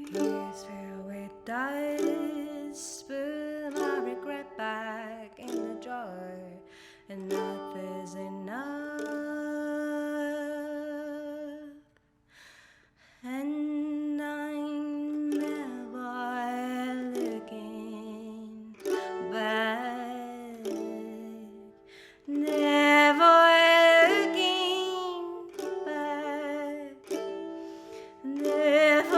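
Mandolin playing a song, with a wordless sung melody over it. The music thins out briefly about halfway through, then returns fuller and louder over the last several seconds.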